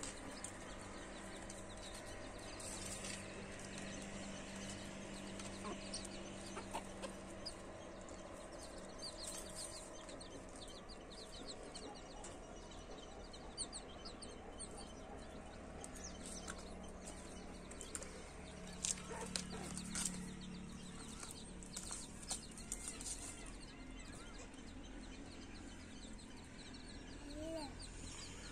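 A hen clucking softly as she forages, with her newly hatched chicks peeping in short, high chirps around her. A few sharp clicks come about two thirds of the way in.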